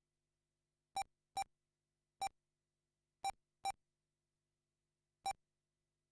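Electronic beeps from an RC race lap-counting system, six short identical tones at uneven intervals, each marking a car crossing the timing line.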